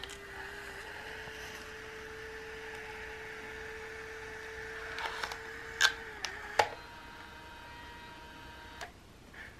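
Square-format instant photo printer feeding out a print, its motor giving a steady whir. A few sharp clicks come near the end of the run, and the motor stops about six and a half seconds in.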